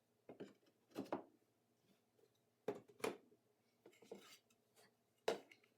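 Wooden cart parts knocking together as tenons are pushed into their mortises for a dry fit: several short, separate knocks and taps about a second apart, the loudest near the end.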